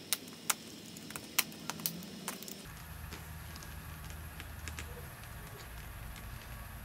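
Utility knife blade scoring and prying at the plastic diffuser of an IKEA LED bulb: a handful of sharp clicks and scrapes in the first two and a half seconds, then only faint ticks over a steady low hum and hiss.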